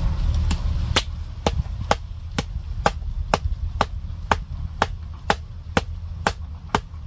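Wooden stake being driven into the soil by blows from a wooden club, wood knocking on wood in a steady rhythm of about two strikes a second.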